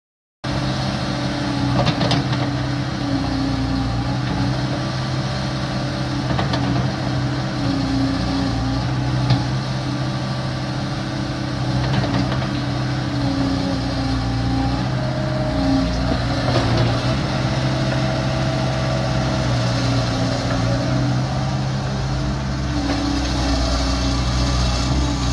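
Komatsu PC75UU-3 excavator's diesel engine running steadily, starting about half a second in, while the hydraulics swing the machine and work the boom and arm; a pitch rises and falls a little as the hydraulics load it, with a few short knocks.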